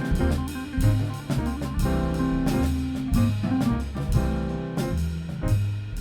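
A band's studio recording of a jazz-flavoured song, with a drum kit keeping a steady beat over a walking bass line and other sustained instrument notes.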